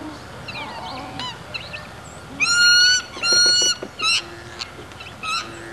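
Black swans calling: two long, high, steady calls one right after the other about two and a half seconds in, the loudest sound, among shorter, quieter calls that slide up and down in pitch.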